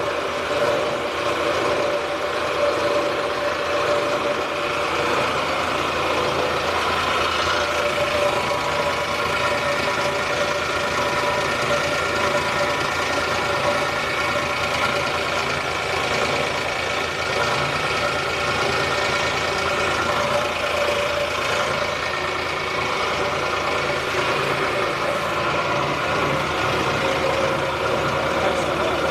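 Wet cable granulator running steadily: a continuous mechanical drone with steady whining tones, with water spraying over its separating table.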